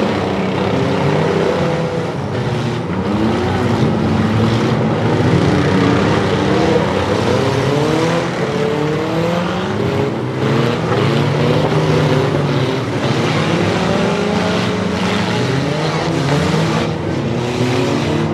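Several demolition derby minivan, mini truck and SUV engines revving up and down over one another as the vehicles drive at each other in the arena, over a steady din of metal and crowd noise.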